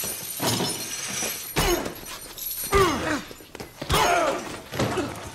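Film fight sound effects: three heavy hits about a second apart, each followed by a man's groan that falls in pitch.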